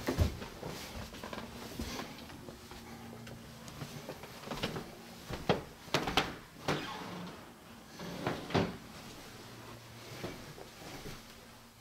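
Interior doors being handled: a handful of sharp clicks and knocks, most of them between about four and nine seconds in.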